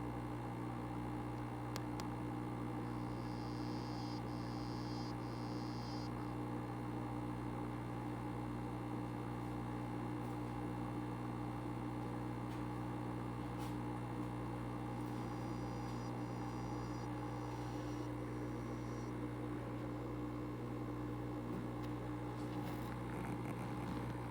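Steady low humming buzz, the kind of call a male African dwarf frog makes underwater, heard through the aquarium. A faint higher buzz breaks in twice, about three seconds in and again around fifteen seconds.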